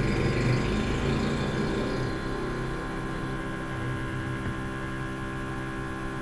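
Steady electrical mains hum with many overtones, the background of the recording, with a hiss that fades away over the first two seconds or so.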